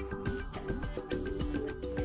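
Background music: held, sustained notes over a light, regular beat.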